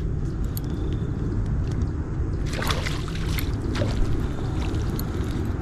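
Hooked rainbow trout splashing at the surface as it is reeled in, a few brief splashes a little past halfway, over a steady rush of river current and wind on the microphone.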